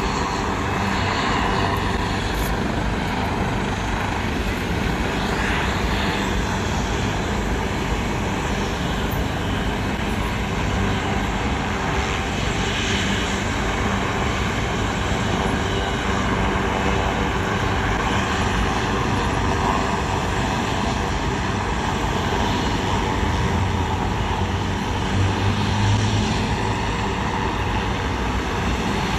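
Steady highway traffic: cars and trucks passing in the open lanes blend into a continuous rumble and tyre hiss with a low hum under it, swelling slightly about three-quarters of the way through.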